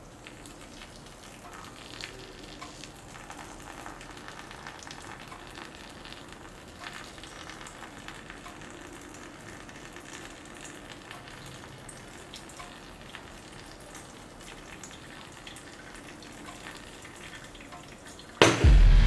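Faint, steady crackling hiss with scattered small pops. Loud music with a heavy bass comes in abruptly just before the end.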